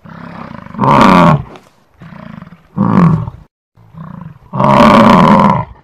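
American bison bellowing: three loud, drawn-out roaring calls, the last the longest, with softer sounds between them.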